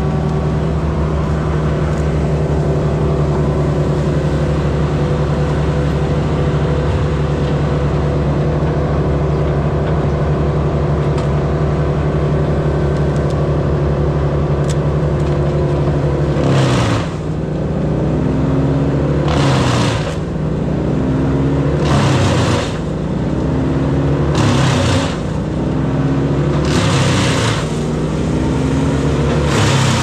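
A large engine running steadily. From about halfway in, a loud rushing noise comes six times, every two to three seconds, and the engine pitch dips with each one as it takes load.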